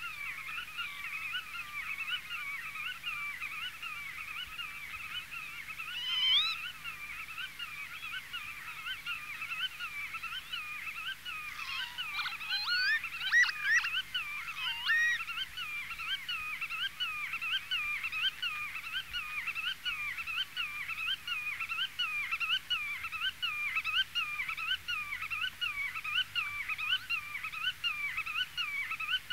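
Black-tailed godwit calling over and over, its call repeated about two times a second. A louder flurry of higher, sweeping calls comes about halfway through, and a short one earlier.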